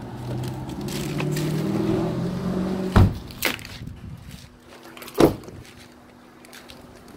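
A car door is slammed shut about three seconds in, with a second door slam about two seconds later. Before the first slam there is a low, wavering voice-like sound.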